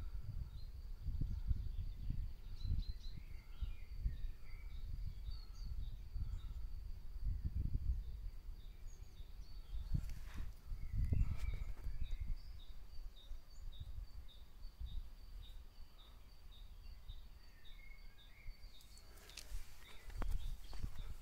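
Wind buffeting the microphone as an uneven low rumble in gusts, with faint scattered bird chirps and a thin steady high tone behind them.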